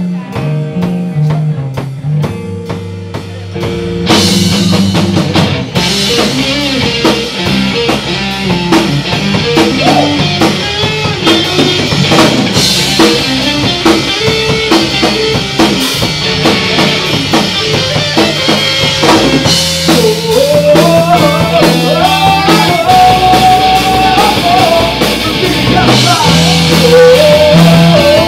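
Live rock band playing: electric guitar and drum kit, quieter at first, then the full band with cymbals comes in loudly about four seconds in. A man sings into a handheld microphone over the band in the second half.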